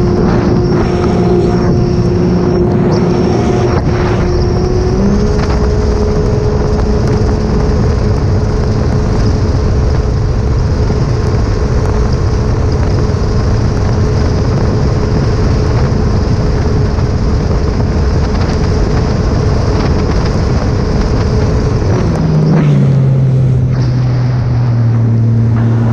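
Sea-Doo RXP-X 300 jet ski's supercharged Rotax three-cylinder engine running under way, with loud rushing wind on the microphone and water noise. The engine pitch steps up about five seconds in and holds steady, then drops sharply near the end as the throttle comes off and the engine settles to a low, steady note.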